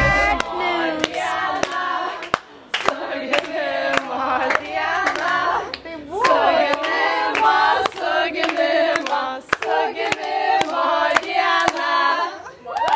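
A group of young women singing a birthday song together while clapping along in time, nearly two claps a second; singing and clapping stop just before the end.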